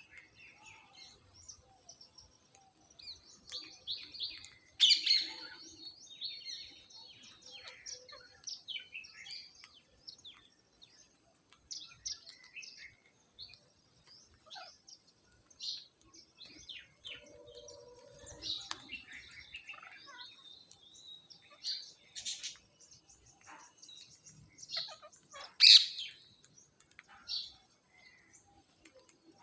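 Parrots chirping in many short, irregular calls, with two louder, sharper calls about five seconds in and near the end.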